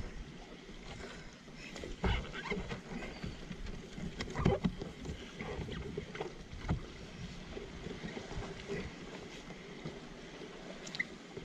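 Kayak on the water with a spray deck being fitted over the cockpit: scattered knocks and bumps against the hull and coaming over small water noises, with no speech.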